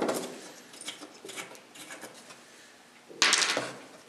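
Wooden ammo crate lid being handled: light taps and knocks on the wood, then a loud scrape of wood on wood lasting about half a second, a little after three seconds in.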